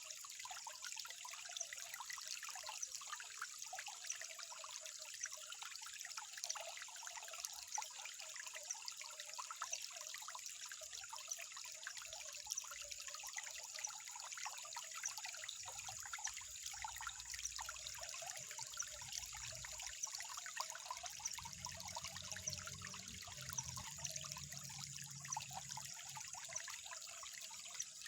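Water trickling steadily over stones, a continuous fine splashing full of small drips and droplet ticks.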